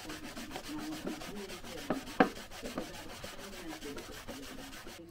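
A pad rubbing wax into the bare wooden seat of an old step ladder chair in quick back-and-forth strokes, a steady rasp, with a couple of light knocks about two seconds in.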